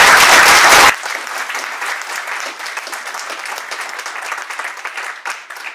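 Applause from a small gathering. It is very loud for about the first second, where hands are clapping close by, then it goes on more softly and dies away near the end.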